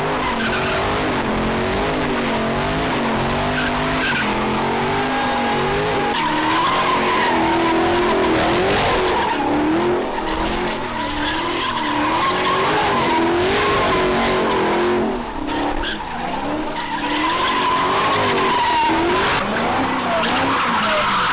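Car engine revved hard and held high, its pitch swinging up and down about once a second, over the constant squeal and hiss of spinning tyres as a car drifts and does donuts.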